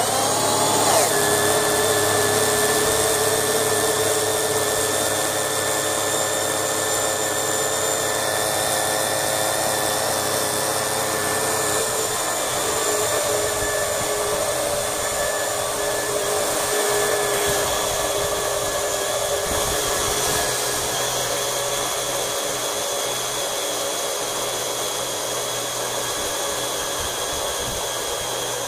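12-volt portable electric transfer pump running steadily with a whine, pumping new automatic transmission fluid into the transmission. Its tone shifts slightly about twelve seconds in.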